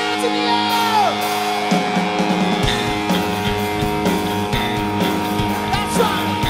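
Live hard-rock band playing: a distorted electric guitar with notes that slide up and down over a held chord, then the full band with drums and bass comes in about two seconds in.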